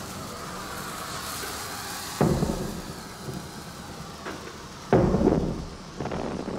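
Two heavy booms of explosions, one about two seconds in and a louder one about five seconds in, each dying away, over a steady rumbling background, with a smaller knock between them.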